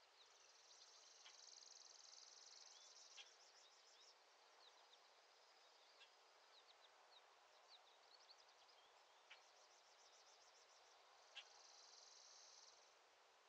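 Faint outdoor nature ambience: insects trilling in two long buzzing runs, one at the start and one near the end, with scattered short bird chirps over a soft hiss.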